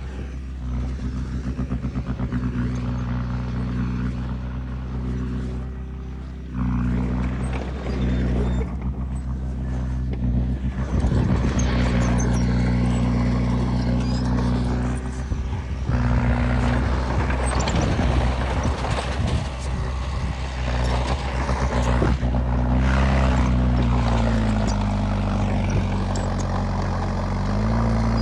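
Heavy diesel machinery engines, a bulldozer and a dump truck, running steadily under load, louder and noisier from about eleven seconds in. Near the end the engine note dips and comes back up.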